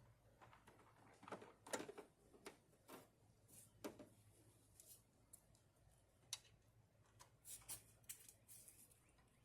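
Faint, irregular clicks, taps and short scrapes of hand tools and metal and plastic parts being handled during repair work under a truck's hood.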